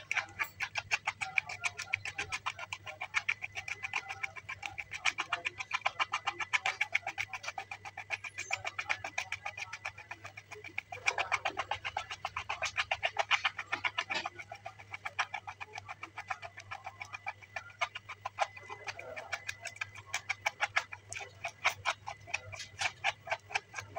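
Red plastic spoon stirring flour bait batter in a plastic bowl: quick, even scraping and clicking strokes, several a second, as the mix is worked into a smooth paste.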